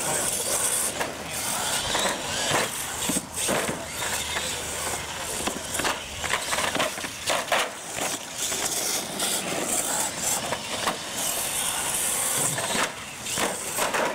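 Radio-controlled monster trucks racing over concrete: motors running and tyres rolling, with several sharp knocks as they hit and land off the ramps.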